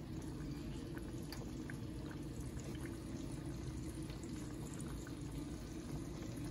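Stuffed green chilies cooking in hot mustard oil in a frying pan over medium heat: a gentle, steady bubbling with scattered small pops and crackles, over a low steady rumble.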